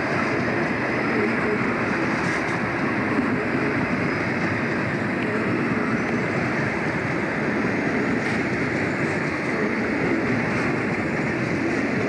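Loaded coal hopper wagons of a long freight train rolling past on the rails: a steady, even rumble of wheels.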